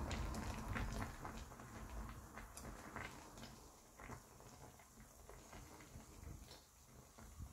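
Water with cooking apple pieces boiling in a stainless steel saucepan: faint irregular bubbling with small pops, a little louder in the first second.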